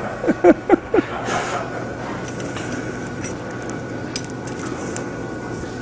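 Olive oil being poured from a bottle into a steel pail to fill the quench bath, with a few light metallic clinks over a steady low hum.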